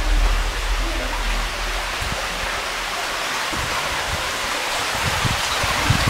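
Steady hiss of running water inside a limestone cave, like rain or a small waterfall, with a few low thumps near the end.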